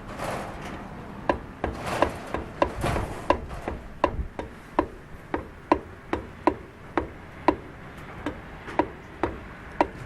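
Subaru Sambar's rhythmic 'pako pako' knocking, like running on a flat tyre, about three sharp knocks a second at first and slowing toward the end as the vehicle slows.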